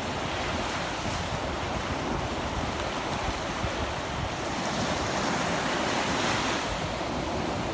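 Surf breaking and washing up a sandy beach, a steady rushing wash that grows a little louder about two-thirds of the way through, with wind buffeting the microphone.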